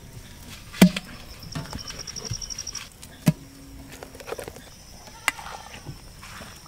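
Idli batter being scooped by hand from a stone grinder into a steel bowl: soft wet handling with a few sharp knocks, the loudest about a second in and just past three seconds. A high, steady chirring runs behind it.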